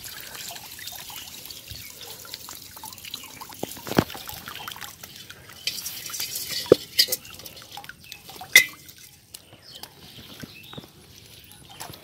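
Water pouring and dripping out of a woven-bamboo fish trap as it is lifted out of a shallow pond, with three sharp knocks from the trap being handled, the loudest about two-thirds of the way in.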